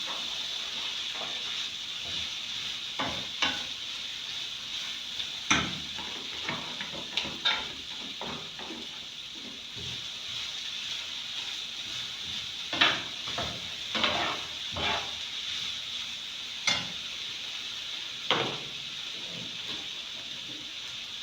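Potatoes and carrots sizzling in oil in a cooking pot while a spoon stirs them, knocking and scraping against the pot about a dozen times at irregular intervals.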